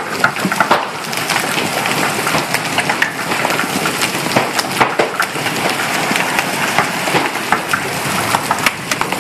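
Large hailstones, a little bigger than golf balls, pelting down: a dense, steady clatter of hail, cut through by many sharp cracks as single stones strike hard surfaces.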